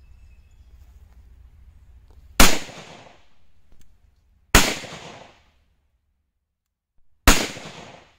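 Three shots from an FN Five-seveN 5.7x28mm pistol, spaced two to three seconds apart, the first about two and a half seconds in. Each is a sharp crack with a brief ringing tail.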